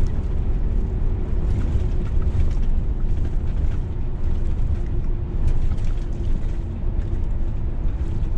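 Steady cab noise of a Scania S500 truck cruising on a highway: a low engine and road rumble with a faint steady hum above it.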